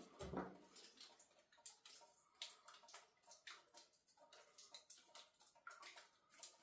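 Near silence inside a cave, with faint scattered ticks and taps and a soft thump just after the start.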